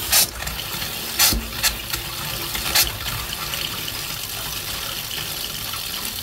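Kitchen faucet running a steady stream of water straight into a sink drain. The water is pressurized by a 12-volt Seaflo pump and accumulator tank. There are four brief, sharp bursts of sound in the first three seconds.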